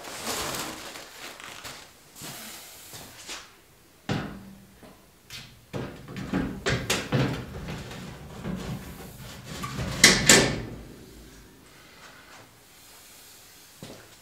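Irregular metal clunks, knocks and scrapes as a radiator is worked down into a truck's radiator support, with the loudest pair of knocks about ten seconds in.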